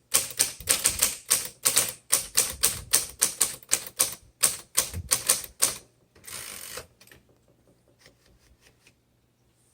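1936 Corona Sterling flat-top manual typewriter being typed on: sharp keystrokes at about three to four a second for some six seconds, then a short rasping sound and a few faint clicks.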